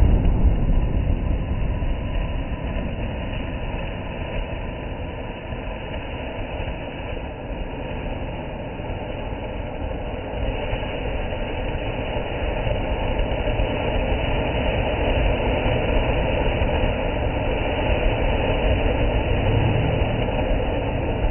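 Flower-pot fountain firework spraying sparks with a steady hiss. It dips a little in the middle and grows louder again in the second half.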